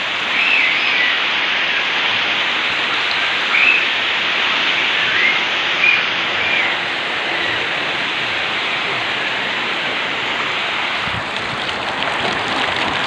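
Steady rain falling, an even hiss, with a few short high chirps over it in the first seven seconds.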